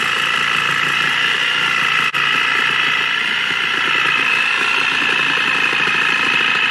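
Corded electric power saw running steadily while cutting through the rubber of an 18-wheeler tire: a steady motor whine over a rapid vibrating chatter.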